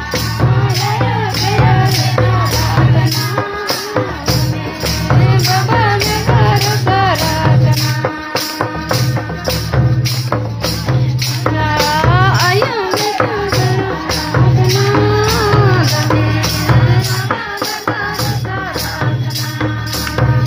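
Music with a rattle keeping a steady beat of about two strokes a second over a repeating bass beat, with a melody that wavers in pitch.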